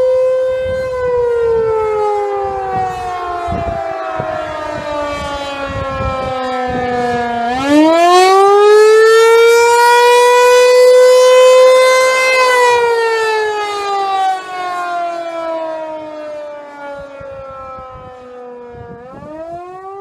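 Outdoor warning siren sounding a wail during a routine monthly test. Its pitch sinks slowly for about six seconds, climbs back quickly about seven and a half seconds in, and holds high for a few seconds. It then sinks again and starts climbing once more near the end.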